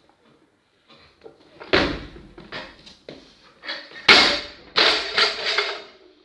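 Loaded barbell with coloured bumper plates dropped from overhead onto rubber gym mats after a clean and jerk. There is a sharp clank of plates a little under two seconds in, then the loudest crash around four seconds in as the bar hits the floor, followed by a second or so of bouncing and rattling plates.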